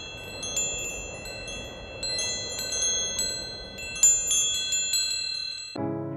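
Metal tube wind chime ringing: the tubes are struck again and again and their high tones overlap and hang on, with the loudest strike about four seconds in. Just before the end it gives way abruptly to guitar music.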